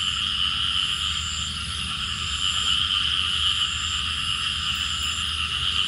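Night chorus of many frogs calling together: a steady shrill drone, with a higher trill repeating every second or so.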